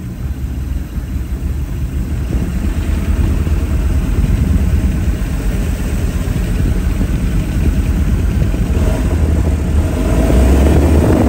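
Boat's outboard motor running and growing gradually louder. The owner says the motor is acting up and running badly.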